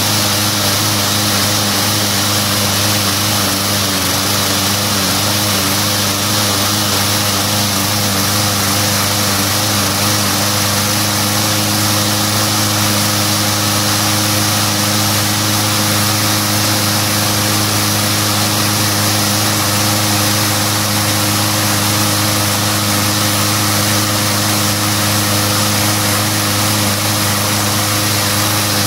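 Push lawn mower's small engine running steadily at a constant speed, with no sputtering or change in pitch.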